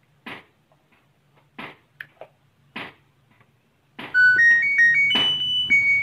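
LG inverter washing machine's control-panel buzzer playing its power-on melody, a loud run of stepped electronic beep notes, starting about four seconds in after a few short soft noises. The tune is the sign that the board, its switching power-supply IC just replaced, powers up again.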